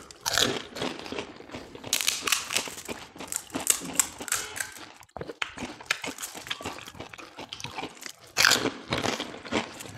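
Crisp fried pani puri shells crunching and crackling as they are cracked open and chewed, in a dense irregular run of crackles.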